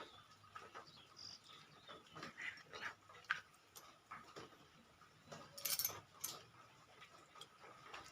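Faint sniffles and short snuffling noises from a woman's nose, with a louder, breathy sniff about five and a half seconds in.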